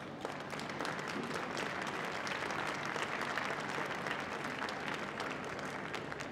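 Audience applauding: many overlapping hand claps that build up over the first second, hold steady, and ease slightly near the end.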